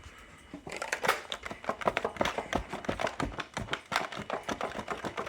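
Rapid, irregular tapping and clicking from hands handling a smoke detector as the test smoke is cleared out of it; the alarm horns are not sounding.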